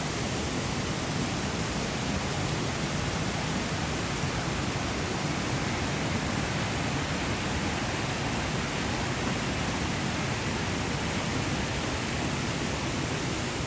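Waterfall rushing steadily into its pool, an even, unbroken noise across low and high pitches.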